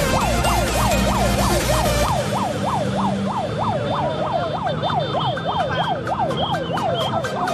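Siren wailing in a rapid yelp, its pitch sweeping up and down about three times a second, over background music. The music's heavy low beat drops out about two seconds in, and even ticking comes in near the end.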